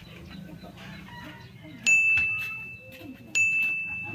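Two bright electronic 'ding' chimes, about a second and a half apart, each starting sharply on one high pitch and ringing away. This is a pop-up sound effect laid over the edit as viewer comment cards appear on screen.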